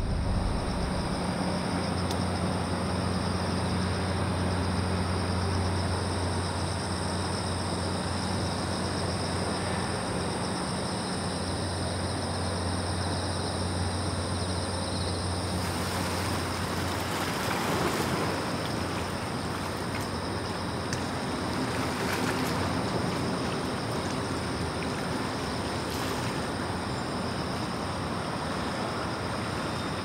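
Sea waves washing on the shore: a steady rushing that swells up a little past halfway and again a few seconds later. Under it runs a steady low hum that fades out about halfway through.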